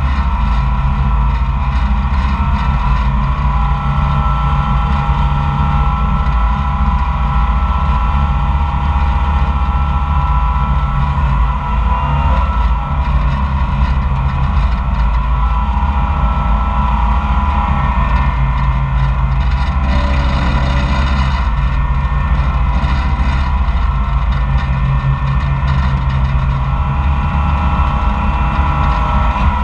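Koehring 440 dragline's engine running steadily under load while the machine drags and hoists its bucket, with a brief change in tone about twenty seconds in.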